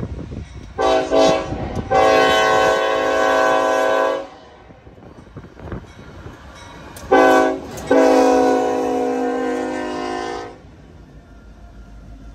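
Norfolk Southern freight locomotive's air horn sounding a loud chord, a short blast then a long one of about two seconds, repeated about five seconds later, over the rumble of the passing train.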